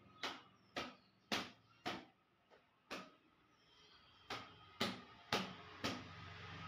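A cloth being slapped against an electric bicycle's frame to beat off dust: sharp slaps about every half second, a pause near the middle, then four more.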